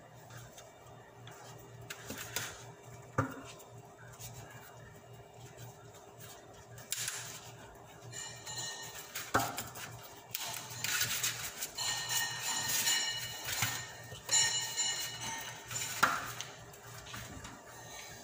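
Quiet handling of a filled tortilla on a metal tray, with a few sharp clicks over a steady low hum. Background music with ringing tones comes in about halfway through.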